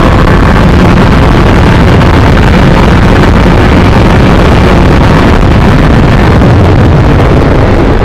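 Loud wind rush buffeting the microphone of a TVS Apache RR 310 at around 150 km/h, with the bike's single-cylinder engine running flat out underneath.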